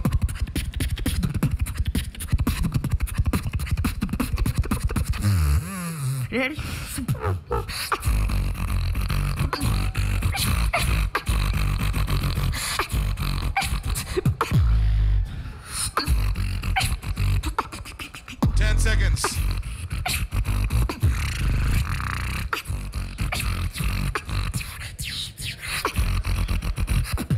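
Human beatboxing into a handheld microphone: fast, dense mouth-percussion clicks and snare-like hits over deep bass kicks, with a few sliding pitched sounds.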